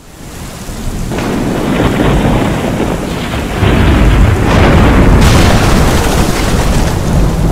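Thunderstorm: heavy rain with rolling thunder, fading in from nothing and growing louder about three and a half seconds in.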